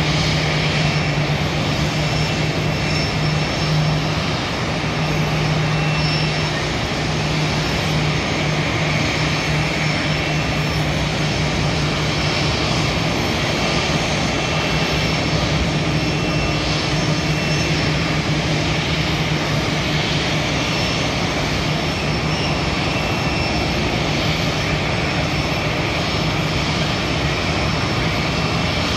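Jet airliner engines running on an airport apron: a steady, loud rushing with a constant low hum and a faint high whine.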